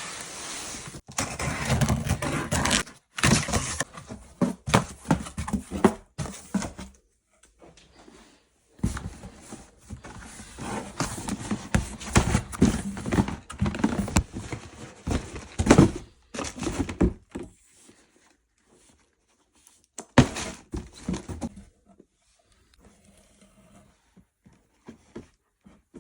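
Rustling and knocking of packaging and football boots being handled during an unboxing, in irregular bursts with short pauses and sharp thumps; it thins out over the last several seconds.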